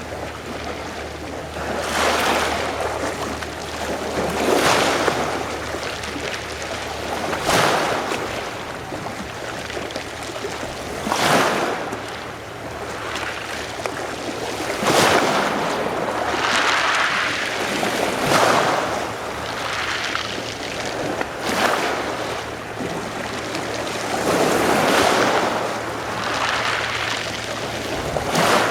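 Adriatic Sea waves washing in against the shore one after another, each swell cresting in a sharp splash every three to four seconds.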